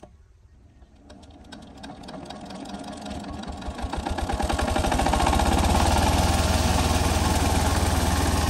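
An 8 hp single-cylinder diesel pumpset engine starting up. A rhythmic beat speeds up and grows louder over about four seconds, then settles into steady running.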